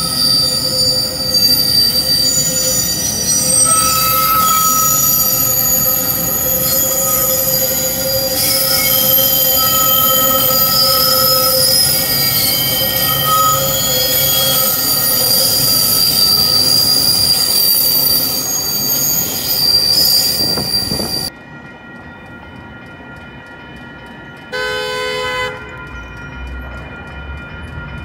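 Metra bilevel commuter train cars rolling past, their steel wheels squealing on the rails in several high tones that shift and overlap. About two-thirds of the way in the train sound cuts off to a quieter background, and near the end a single horn note sounds for about a second.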